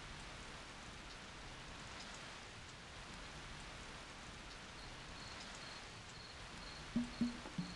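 Steady hiss of rain falling, even and soft. Near the end a few plucked music notes come in over it.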